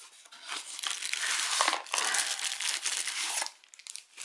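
Plastic protective bag crinkling as it is pulled from a cardboard box and handled: a dense, crackly rustle lasting about three seconds that dies away near the end.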